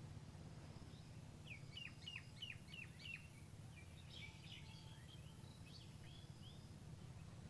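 Faint bird calling: a run of about six quick falling notes, then scattered chirps, over quiet steady background noise.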